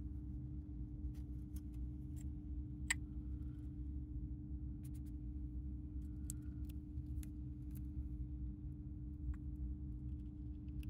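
Sparse, sharp little clicks from a dwarf hamster moving about its cage and nibbling food at its dish, over a steady low hum.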